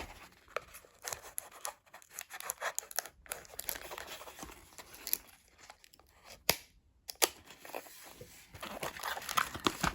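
Toy packaging being handled and opened by hand: paper and plastic rustling, crinkling and tearing, broken by short sharp clicks, two louder ones about six and a half and seven seconds in.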